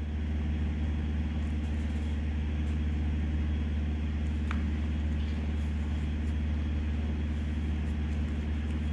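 Steady low mechanical hum, like a motor running in the background, unchanging throughout, with one faint tick about halfway through.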